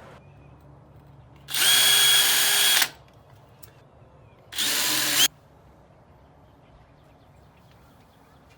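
Power drill run at a steady speed in two bursts: a longer one of about a second and a half, then a shorter one. These are holes being drilled at the marks for the doorbell's mounting plate.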